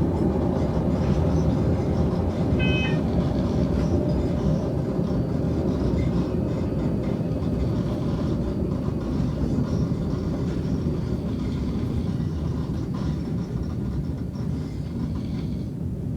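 Subway train running, heard from inside the car: a steady low rumble of the moving train, with a short high-pitched tone about three seconds in.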